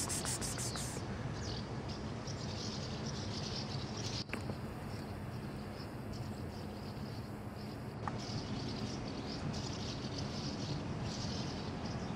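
Outdoor background: scattered high chirping over a steady low rumble, with a brief click about four seconds in.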